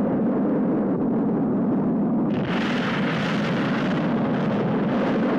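Steady low roar of a rocket launch on an old film soundtrack, with a hissing rush joining about two seconds in.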